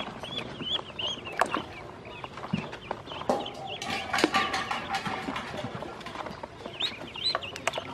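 Ducklings peeping, a rapid run of short high chirps. Water splashes in the plastic basin from about three to five seconds in as more ducklings are set into it.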